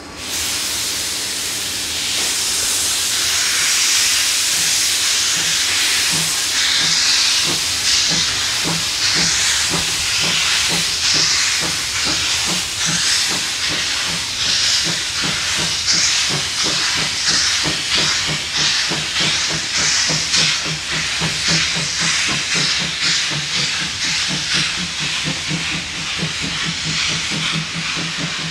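Steam locomotive starting away under load: a loud, steady hiss of steam from its open cylinder drain cocks, with exhaust chuffs that begin slow and quicken steadily as it gathers speed.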